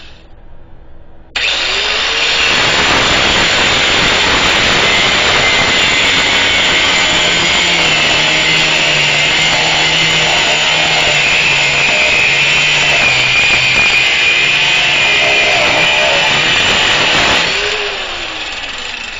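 Harbor Freight Drillmaster 4-1/2 in angle grinder's cutoff wheel cutting through a 3/8 in steel bolt. The cut starts suddenly about a second in and runs steadily for about sixteen seconds. Near the end the wheel comes off the bolt and the grinder winds down with a falling whine.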